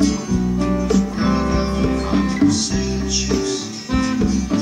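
Background music: strummed acoustic guitar with a steady beat.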